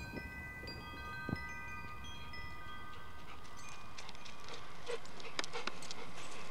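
Wind chimes ringing: several clear metallic tones struck at different moments and ringing on together, over a background that grows steadily louder.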